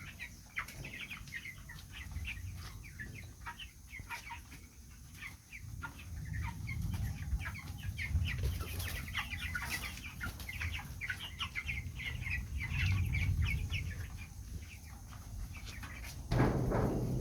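Many chickens clucking and calling over one another, a dense run of short calls over a low rumble, with one louder, lower sound near the end.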